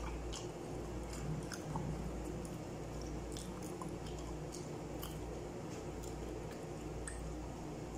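Faint chewing and wet squishing as goat trotters in paya curry are eaten by hand. Scattered small clicks over a steady low hum.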